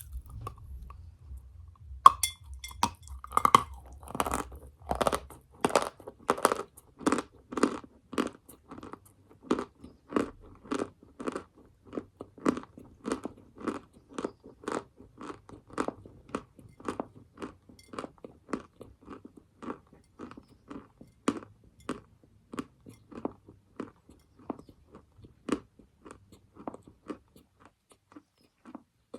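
Close-up crunching of edible chalk or clay: a sharp bite about two seconds in, then steady rhythmic chewing, about two crunches a second, growing softer.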